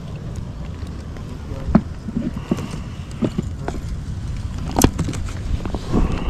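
Steady low wind rumble on the microphone, with irregular clicks and knocks from a fishing rod and spinning reel and a small bluegill being handled. The loudest is a sharp click about five seconds in.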